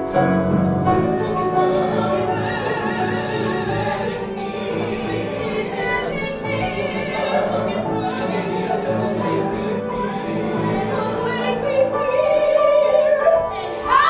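A musical-theatre song: a singer holding notes with vibrato over instrumental accompaniment.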